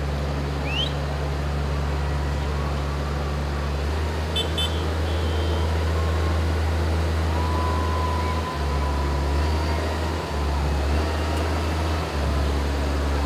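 Diesel engine of a New Holland grape harvester running as it drives slowly past, a steady low rumble that dips briefly a few times.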